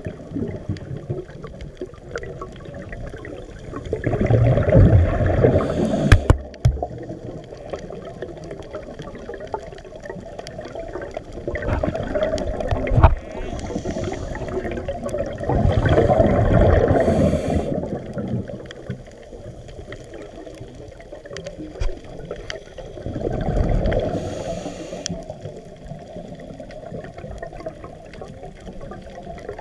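A scuba diver breathing through a regulator underwater: exhaled bubbles rumble and gurgle in loud bursts every six to eight seconds, with quieter stretches between them. Scattered sharp clicks run through it.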